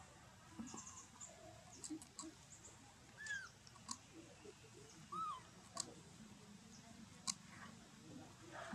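Baby long-tailed macaque giving a few faint, short squeaks, each rising and falling in pitch, with scattered faint clicks and very high chirps around them.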